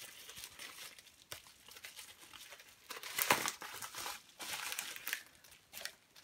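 White plastic postal mailer being torn open and crinkled by hand, in irregular bursts of crackling, the loudest about three seconds in.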